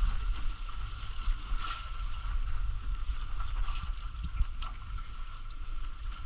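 Twin Honda outboard motors running steadily on a small fishing boat, a low rumble with a thin steady whine, over wind and water against the hull. A few faint knocks come through.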